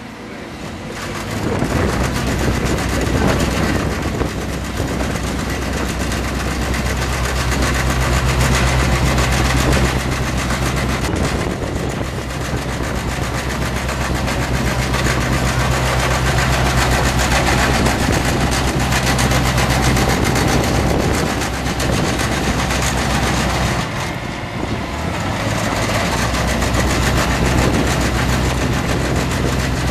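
Small tandem road roller's diesel engine running steadily as it compacts a gravel ramp, with a strong low drone that breaks off for a second or two about 24 seconds in, then resumes.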